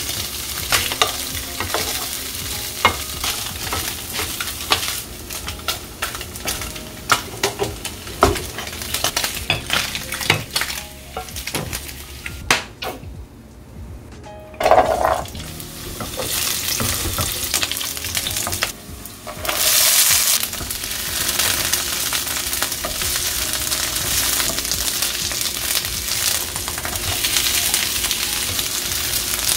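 Food frying in a hot pan while a spatula stirs it, clattering and tapping against the pan. The first half is mostly quick stirring strokes; after a short lull the frying settles into a steady sizzle, with a louder surge about two-thirds of the way through.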